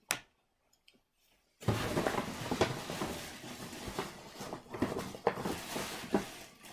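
A short click, then after about a second and a half of near quiet, gift packaging rustling and crinkling continuously as it is handled.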